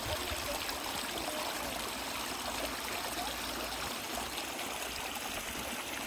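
Steady rushing of water, an even hiss that does not let up.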